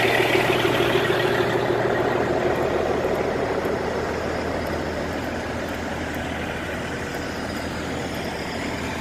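Diesel semi-truck engines: a steady low hum of idling trucks, with a louder truck engine that fades away over the first few seconds.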